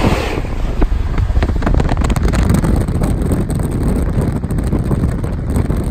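Wind buffeting the microphone at the open window of a moving train, over the low rumble of the train running on the rails.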